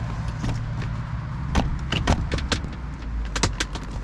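Sharp clicks and knocks of a folding kayak's wood-and-metal frame fittings being locked after the frame is put under tension, several of them between about a second and a half and three and a half seconds in. A steady rumble of road traffic runs underneath.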